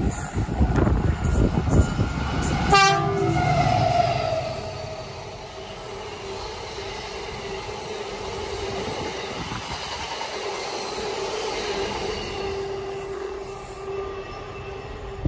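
A diesel-hauled freight train passing close by: the locomotive's loud rumble, with a horn sounding about three seconds in, then a long rake of covered hopper wagons rolling past with a quieter steady rumble and a thin steady whine.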